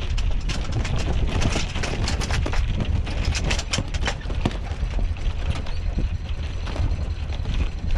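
Anchor chain running out through the bow windlass in free-fall as the anchor drops: a fast, irregular rattle of metal clanks that thins out about halfway through. A steady low rumble runs under it.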